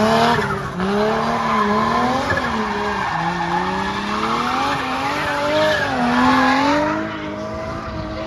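Drift car's engine revving hard, its note rising and falling again and again as the throttle is worked, with tyres screeching as the car slides sideways.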